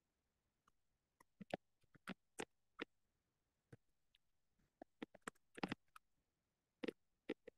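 Near silence broken by about a dozen faint, irregular clicks and taps.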